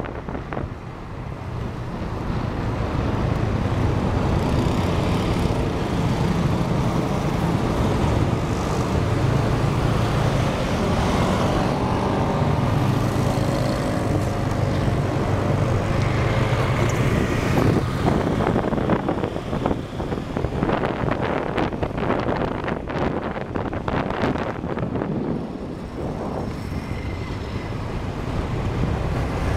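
Motorbike engine running steadily on the move, with road traffic around it and wind buffeting the microphone in the second half.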